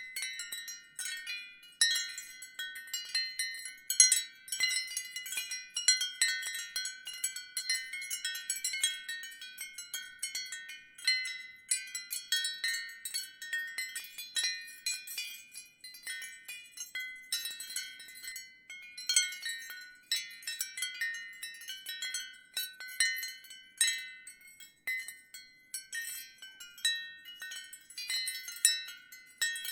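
Ceramic wind chimes clinking and ringing in the wind, in irregular clusters of high tones that come and go with the gusts.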